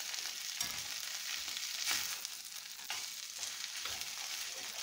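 Chorizo and nopales sizzling in a steel pan while a metal spoon stirs and scrapes through them, a scrape roughly once a second over the steady frying hiss.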